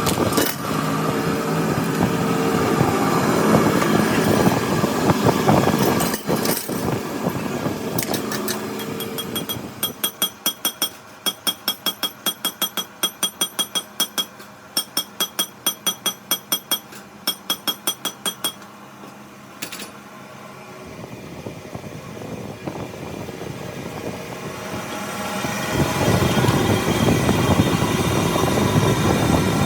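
Workshop machinery working on a flywheel: a steady machine noise, then a run of sharp, regular metallic ticks, two or three a second, for about eight seconds. The machine noise builds up again near the end.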